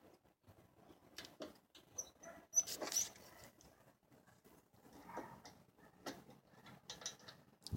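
Scattered light clicks and taps from hand work on parts, with a few short high squeaks about two to three seconds in.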